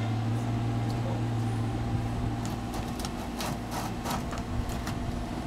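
Steady low engine hum throughout, with a handful of short knocks and scrapes between about two and a half and five seconds in from hands working an orange plastic drain pipe joint in the soil.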